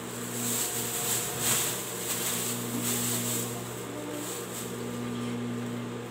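Overlock sewing machine (serger) running steadily, a continuous electric-motor hum with the whir of stitching. A brief louder noise about a second and a half in.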